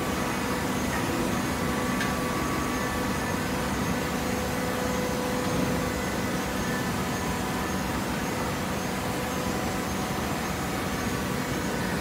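Horizontal hydraulic baler's power unit running with a steady mechanical hum and a few faint held tones.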